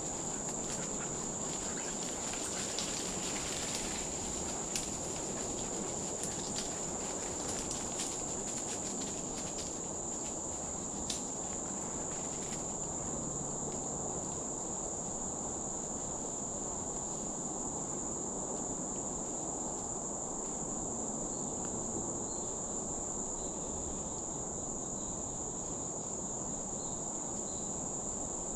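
Steady, high-pitched drone of an insect chorus in the woods, with a few faint sharp clicks in the first half.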